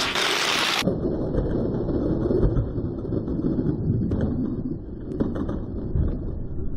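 Die-cast Hot Wheels cars rolling down a long plastic downhill track, a low rattling rumble. It opens with a loud rushing noise that cuts off under a second in, and a few sharp clacks come in the last few seconds as the cars reach the finish gate.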